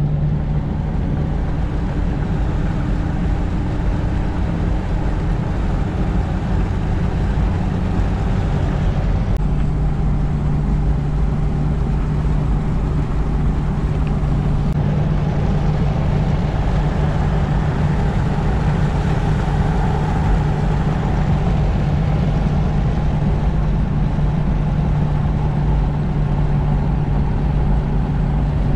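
Toyota FJ Cruiser's 4.0 L V6 and tyres heard from inside the cabin while cruising on the highway: a steady engine drone over road noise. The drone grows stronger about nine seconds in.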